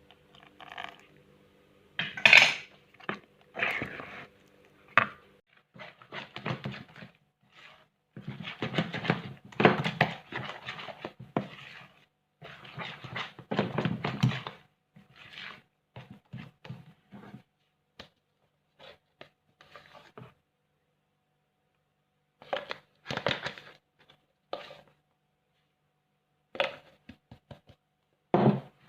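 Kitchen handling sounds in irregular bursts: a bowl and utensils knocking, clinking, scraping and rubbing, with a few sharp clicks.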